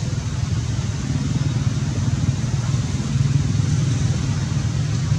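A steady low rumble of background noise, with no distinct calls or knocks.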